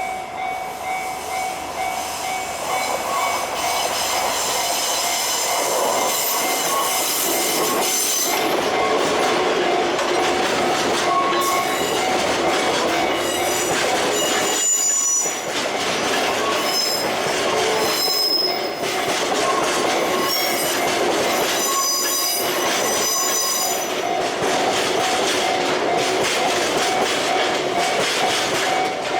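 Freight train rolling over a level crossing, its wheels squealing in high shifting tones over the rumble and clack of the wagons. The crossing's warning bell rings with a steady two-tone ding.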